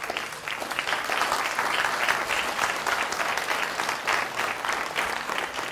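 Audience applauding: many hands clapping, building up over the first second or so and thinning out near the end.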